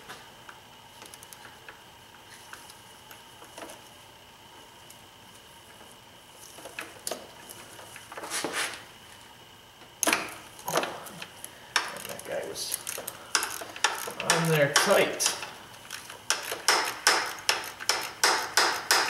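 Ratchet with a 5 mm Allen bit clicking as it works the bolt that holds a BMW intake camshaft position sensor. Quiet at first, then scattered metal clicks from about a third in, turning into a steady run of ratchet clicks, several a second, over the last few seconds.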